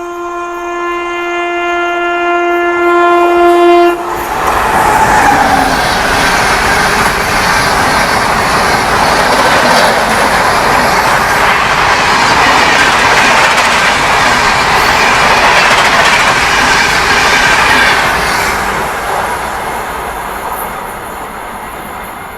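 Indian Railways express train horn sounding one long, steady blast as the train approaches. The horn cuts off about four seconds in, and the train then rushes through the station at speed with a loud clatter of wheels on rails that fades away near the end.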